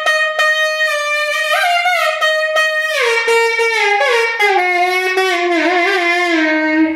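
Nadhaswaram, the South Indian double-reed wind instrument, playing a solo melodic phrase. It holds a note, steps up, then winds down through gliding, ornamented notes to a low held note.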